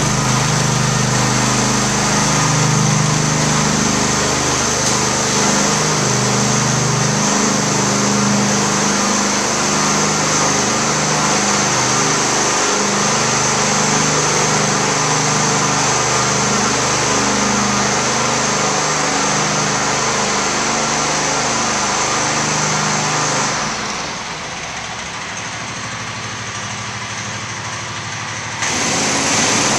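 Propane-powered floor burnisher: its small engine runs steadily with a spinning-pad hiss as it is pushed across a tile floor. The sound drops for about five seconds near the end, then comes back up.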